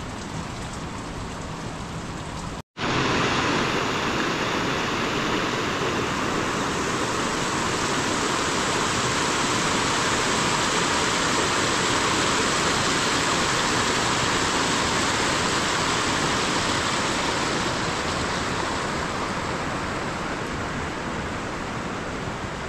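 Steady rush of muddy rainwater runoff pouring down over rock, with rain falling. The sound drops out for a moment about three seconds in, then comes back louder and holds steady.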